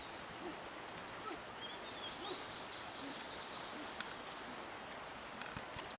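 Faint forest ambience with soft, distant bird calls: a few short high chirps and scattered low hoots.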